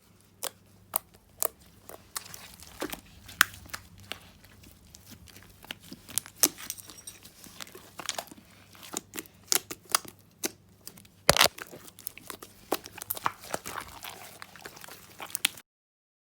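Slime being squished and poked by hand, with many irregular sharp clicks and pops of trapped air, the loudest about eleven seconds in.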